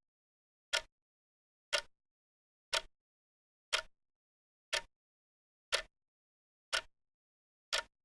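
Clock ticking: one sharp tick each second, steady and even, with complete silence between ticks.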